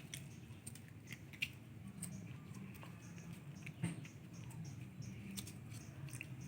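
Scattered light clicks and taps over a faint, steady low hum, with one louder tap nearly four seconds in.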